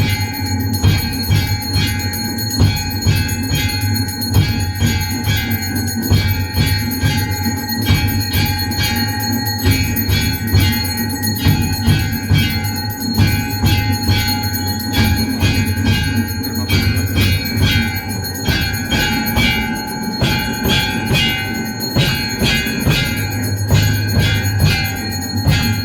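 Temple bells ringing continuously through a Hindu aarti, clanged rapidly several strikes a second, with a steady low hum underneath.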